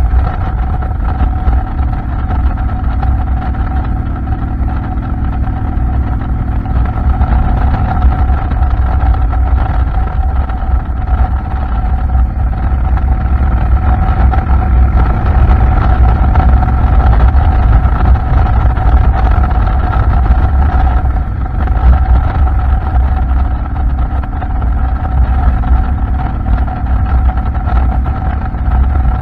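Heavy wind buffeting on the microphone of an AKASO EK7000 Pro action camera riding on a moving motorcycle, a dense rumble under a steady high tone.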